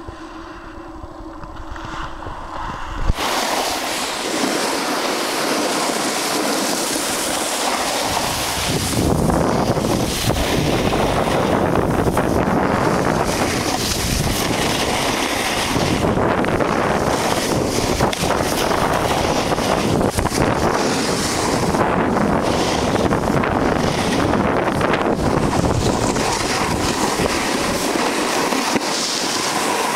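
Wind buffeting the microphone while moving down a ski slope, mixed with the scrape of sliding over snow: a loud, steady rushing that starts abruptly about three seconds in.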